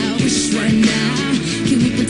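Music: a song with a melody line over a steady beat.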